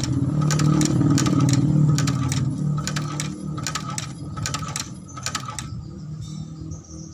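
Shoe-sole stitching machine running: a low motor hum under an even run of sharp clicks from the stitching mechanism, about two or three a second. The clicking stops near the end.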